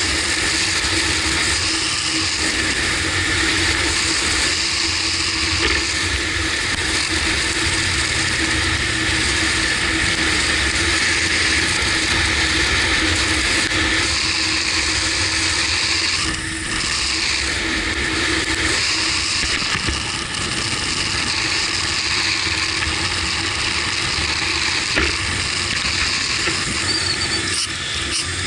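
Motorcycle riding at road speed: steady wind rush over the bike-mounted camera, with the Kawasaki Versys 1000's inline-four engine droning underneath.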